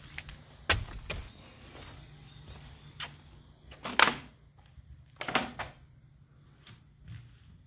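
Footsteps on a hollow wooden deck and plywood subfloor: a few separate heavy thumps at uneven spacing, the loudest about four seconds in.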